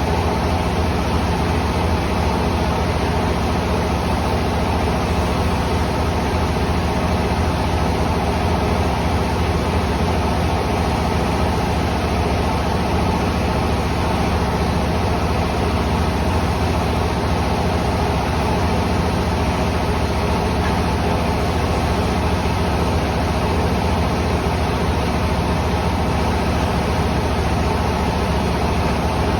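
Rice mill machinery running steadily: a loud, unchanging drone with a low hum and a faint steady tone above it.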